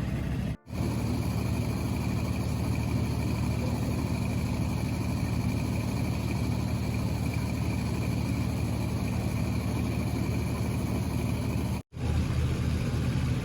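An engine running steadily at constant speed. There is a low hum and a faint high whine, and the sound cuts out abruptly for an instant about half a second in and again near the end.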